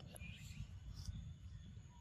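Quiet outdoor background: a steady low rumble, with a brief faint high chirp near the start and a faint tick about a second in.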